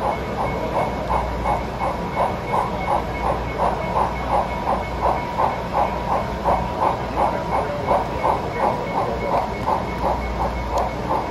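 Sound-equipped HO scale model steam locomotive chuffing steadily as it runs, about three chuffs a second.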